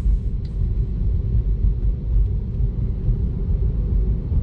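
Steady low road rumble of tyres and road noise inside the cabin of a moving Tesla electric car, with no engine sound.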